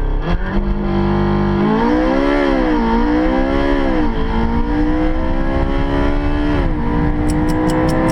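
Porsche 918 Spider's V8 hybrid on launch control: the engine is held at a steady rev for about a second and a half, then the car launches. Engine pitch wavers, climbs steadily through the pull, drops briefly with a gear change about seven seconds in, and climbs again.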